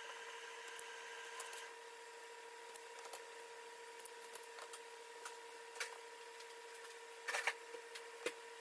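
Faint clicks and snips of a hand wire stripper working on the end of a wire and of the wire being handled, with a louder cluster of clicks near the end, over a steady electrical hum.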